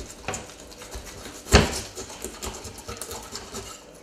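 Kitchen knife cutting into a sea bass around behind the head: a run of short scrapes and clicks, with one loud knock about one and a half seconds in.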